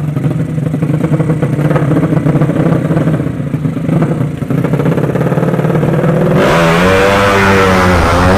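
Drag-racing motorcycle's 200cc engine running steadily with a fast rattling pulse, then, about six seconds in, suddenly much louder, its pitch rising and falling as it revs.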